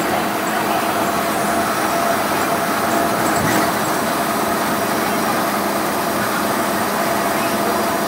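Cummins 5.9 diesel engine and road noise heard from inside a 1998 Blue Bird school bus cruising at highway speed: a steady drone with a constant whine.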